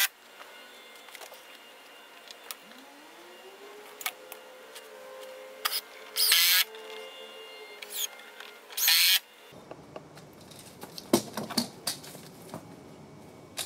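DeWALT 20V cordless impact driver driving 3-inch star-head screws into 2x4 framing lumber, in three short bursts, the longest about half a second.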